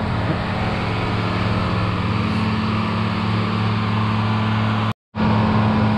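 Boat travelift's engine running with a steady hum as the lift drives along the haul-out slip. The sound drops out briefly near the end.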